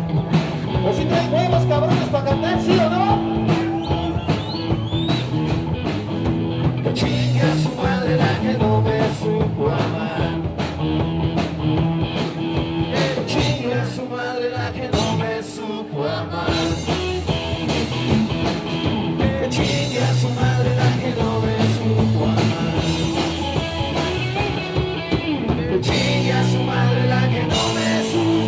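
Rock band playing a blues-rock number live, with a steady drum beat under bass and guitar.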